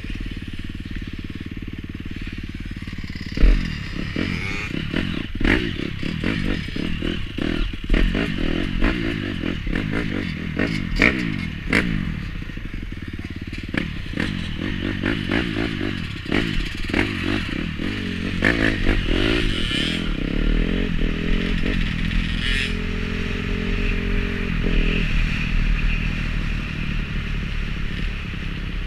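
Dirt bike engine running steadily while riding over a rough gravel track, heard close from the bike itself, with many sharp knocks and clatters over the bumps, the loudest about three and a half seconds in.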